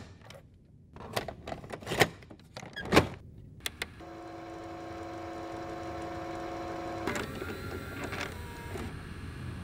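Sound effects for an animated logo: a few sharp mechanical clicks and hits about a second apart, then a steady humming chord over a swelling hiss that stops about seven seconds in, leaving a noisier hiss that fades out.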